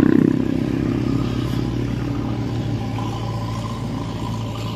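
A motor vehicle engine running steadily with a low, even hum.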